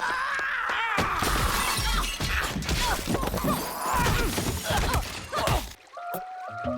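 The 'Pottery Drop Break' stock sound effect: ceramic pottery crashing and shattering, with shards clattering and ringing as they scatter. It cuts off suddenly near the end.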